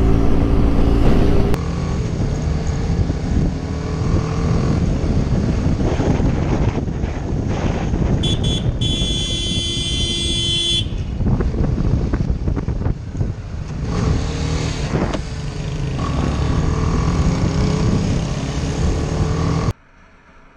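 Motorcycle riding on a helmet-camera microphone: engine and wind noise running continuously, changing abruptly between clips. A vehicle horn sounds for about three seconds near the middle.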